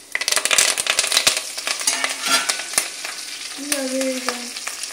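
Curry leaves, bay leaves and dried red chillies tipped into hot oil with mustard, cumin and fenugreek seeds in a steel pan, bursting into a loud crackling sizzle about a quarter second in, then frying on in a steadier sizzle as a wooden spoon stirs them: the tempering for sambar.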